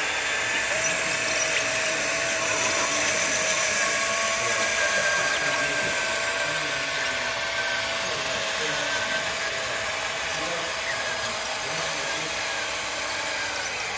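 Radio-controlled scale John Deere excavator's motor and hydraulic pump whining steadily as it works its arm, a high whine made of several held tones.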